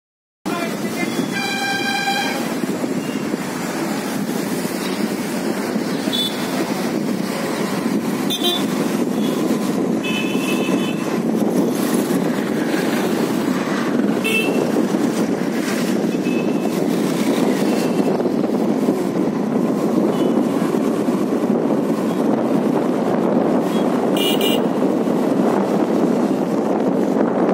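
Steady rush of wind and road noise from a moving motorcycle, starting abruptly about half a second in. A short vehicle horn toot sounds about two seconds in, and fainter horn beeps from passing traffic follow several times.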